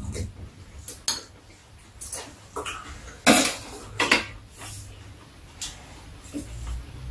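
Metal spoons and chopsticks clinking against bowls and dishes at a meal: a series of separate sharp clinks, the two loudest about three and four seconds in.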